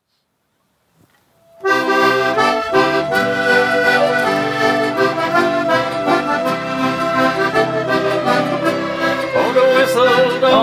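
Button accordion with acoustic guitars and mandolin playing the instrumental intro of a traditional folk song, starting about a second and a half in after silence. A singer's voice joins near the end.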